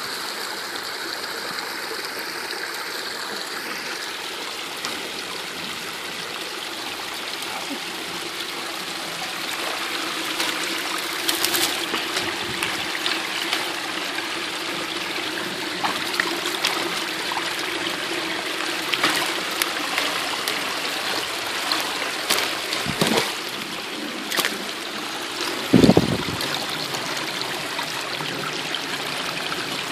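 Shallow creek water trickling and running steadily. From about ten seconds in there are scattered clicks and knocks, with one louder thump near the end.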